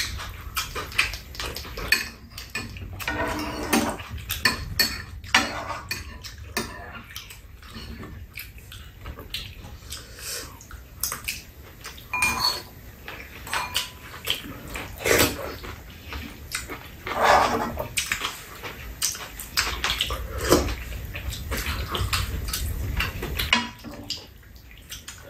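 Steel spoons and chopsticks clinking and scraping against ceramic bowls and a metal tray as two people eat, scattered irregular clicks throughout. Chewing and slurping of food come between the clinks.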